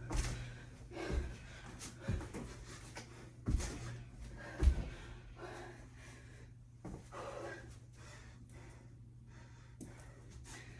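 A person breathing hard and gasping while doing burpees, with about five dull thumps in the first half, then quieter panting.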